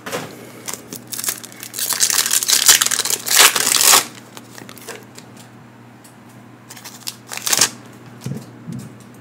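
Crinkly plastic packaging being crumpled and torn open by hand, loudest in a stretch from about one and a half to four seconds in, with one more short crinkle near the end.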